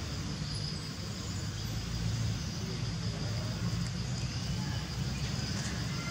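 Motorbike and road traffic, a steady low rumble, with a steady high-pitched hum over it.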